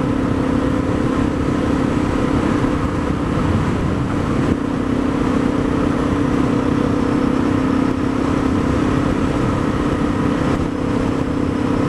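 Honda dual-sport motorcycle's single-cylinder engine cruising at a steady speed, its note holding one even pitch, heard on board.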